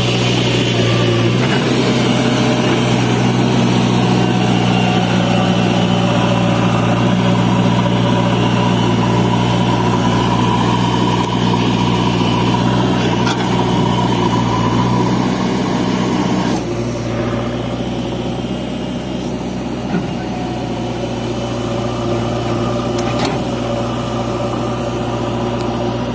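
Heavy diesel engine of a farm tractor or backhoe loader running steadily. About sixteen seconds in the sound changes abruptly and becomes a little quieter.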